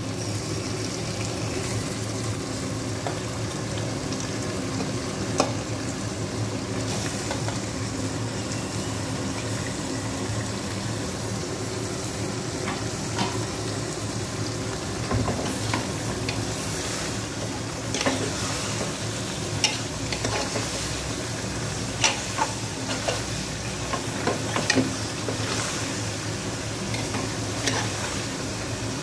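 Raw mutton pieces sizzling in hot oil in an aluminium pressure cooker, a steady frying hiss. Scattered clicks and knocks come in the second half as more meat is dropped in and turned by hand.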